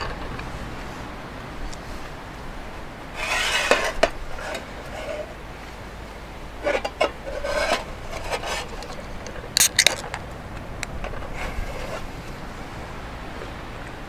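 Wooden chopsticks scraping and clicking against the inside of an opened tin can, in a few short bursts, with sharp knocks about ten seconds in as a drinks can is handled and set down on the table.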